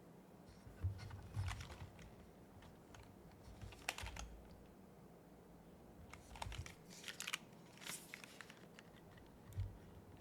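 Typing on a Smoke 65% custom mechanical keyboard with TypePlus switches, a 4 mm PEI plate and JTK SORA keycaps. Keystrokes come in short irregular clusters separated by pauses, each press a sharp click with a low thud beneath it.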